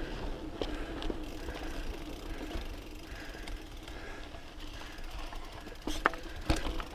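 Mountain bike rolling over a rocky dirt trail: tyres crunching on dirt and stones with a steady mechanical buzz, typical of the rear hub's freewheel ratcheting while coasting, and light rattles from the bike. Two sharp knocks about six seconds in as the wheels strike rocks.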